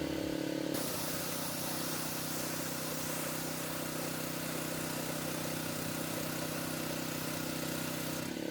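A pressure washer's engine runs steadily. From about a second in, a hiss of spraying water runs with it.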